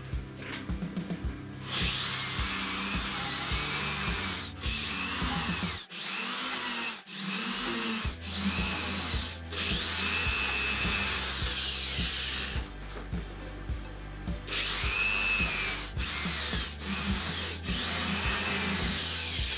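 Corded electric drill boring a series of holes in wood, in repeated bursts of one to three seconds. The motor's whine rises and falls as the trigger is squeezed and eased, with short pauses between holes.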